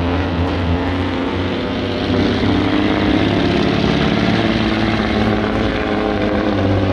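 Semi truck's diesel engine running under heavy load at full throttle as it drags a weight-transfer sled down the pull track, a loud, steady drone.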